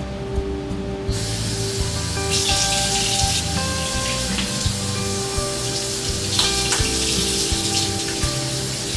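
Soft background music of held, slowly changing notes. A steady hiss of noise comes in about a second in and continues beneath it.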